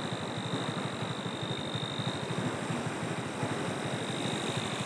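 Motorcycle engine idling steadily, with a steady high-pitched whine running over it.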